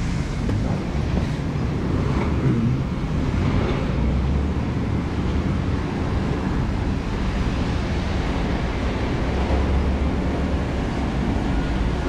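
Steady low rumble of heavy engine-driven machinery running, with an even noisy hiss over it.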